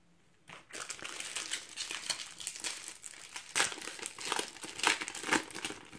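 Shiny foil wrapper of a Panini Euro 2016 card packet being torn open and handled, crinkling continuously, with a few sharper crackles in the second half.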